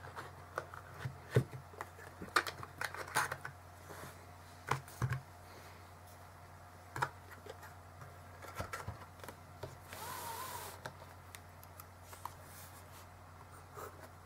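Scattered clicks, taps and light knocks from handling fountain pen parts and a small box on a desk, most of them in the first few seconds, with a brief rushing, scraping noise a little after ten seconds in.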